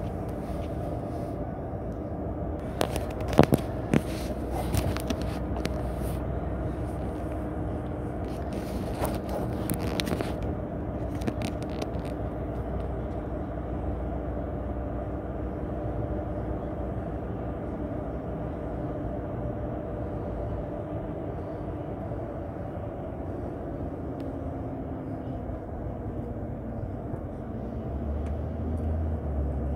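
Steady drone of a moving road vehicle, with a few sharp clicks and scrapes about three to four seconds in and again around nine to ten seconds. A deeper rumble comes in near the end.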